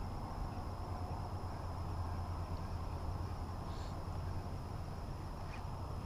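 Steady low rumble of wind on the camera microphone, with a few faint ticks.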